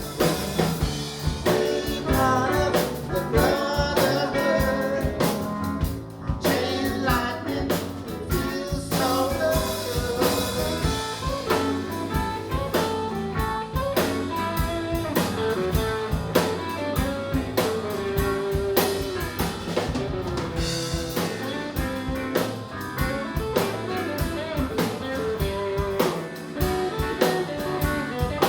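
Live band playing a blues shuffle, with drum kit, guitar and a singing voice.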